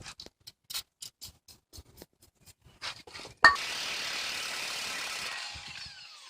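Light metallic clicks of hand tools being handled, about four a second. About three and a half seconds in, a sharp ringing metal strike, followed by a steady hiss that fades over about two seconds with falling whistles near the end.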